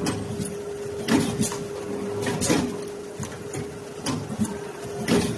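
Automatic steel O-ring bending and butt-welding machine running through its cycle: a steady hum with a short mechanical clack about every second or so as each ring is formed.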